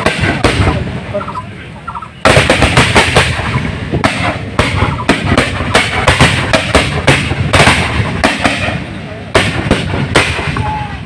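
Rapid gunfire from several weapons at once, a dense run of overlapping sharp shots. It eases off briefly just before two seconds in, then starts again abruptly and keeps going to near the end.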